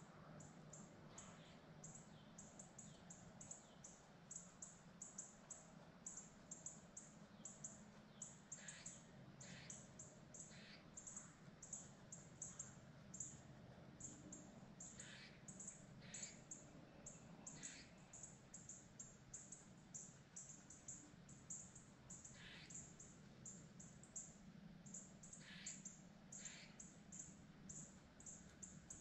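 Quiet woodland ambience: faint bird chirps every few seconds over a steady, very high-pitched pulsing chirp repeating several times a second.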